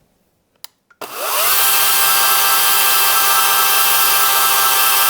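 WEN 40V Max cordless electric chainsaw: two faint clicks, then about a second in the motor spins up with a rising whine and runs steadily at full speed with no load, the Oregon chain whirring around the bar to get freshly added thin oil flowing through it.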